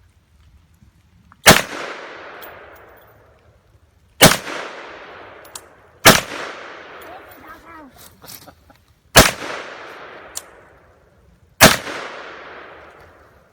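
Semi-automatic pistol fired five times, one shot every two to three seconds, each shot followed by a long echoing tail.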